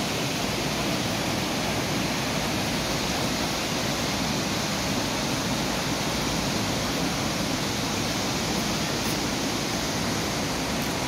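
Steady rush of water from a waterfall.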